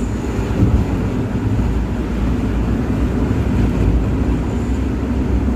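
Steady low rumble of engine and tyres from a vehicle moving at highway speed, heard from inside its cabin.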